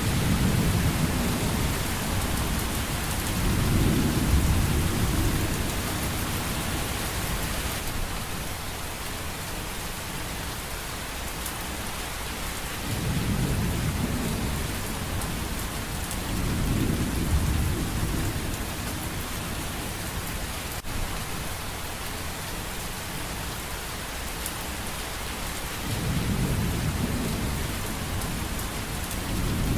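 Steady rain with rolling thunder: a constant hiss of rainfall, with low rumbles of thunder swelling and fading away several times.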